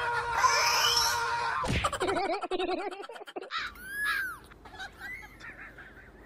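Music for the first couple of seconds, then a wavering warble. A kitten then mews twice, high and thin, one cry about four seconds in and a smaller one about a second later.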